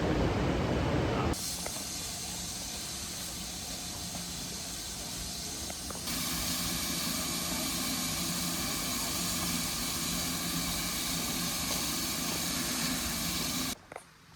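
Steam locomotive letting off steam: a steady hiss that steps louder about six seconds in and cuts off abruptly near the end. A loud low rumble comes before the hiss in the first second or so.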